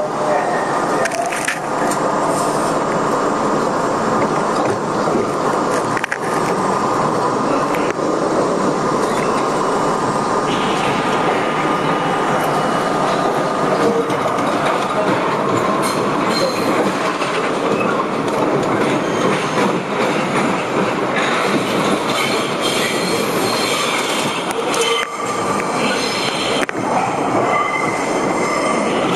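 R32 subway train running through a tunnel: a steady loud rumble and rattle of the cars, with thin high wheel squeals coming and going and a few sharp clicks over the rail joints.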